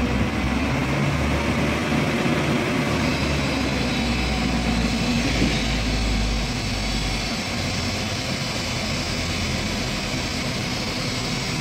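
Diesel engine of a Tadano truck-mounted crane running to drive the crane's hydraulics while it lifts a heavy steel beam. Its deep low hum drops away about seven seconds in, leaving a steadier, lighter running sound.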